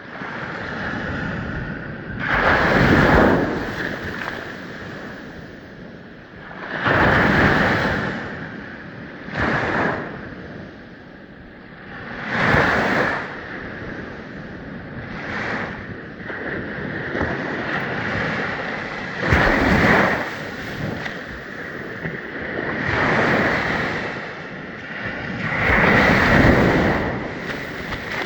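Ocean waves breaking on a sandy shore: a steady wash of surf with a louder surge of breaking water and foam about every three to four seconds.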